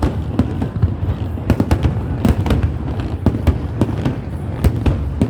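Aerial fireworks going off in rapid, irregular succession: many sharp bangs overlapping one another over a continuous low rumble.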